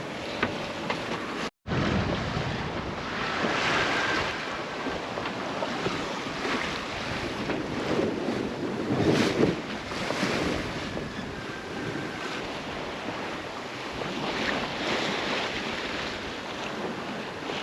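Sea waves washing past a small sailboat at sea, with wind buffeting the microphone; the water surges louder about every five seconds.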